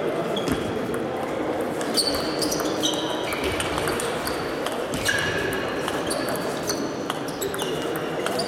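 Celluloid table tennis balls clicking off bats and the table in quick rallies, many hits ringing briefly with a high ping in a large hall.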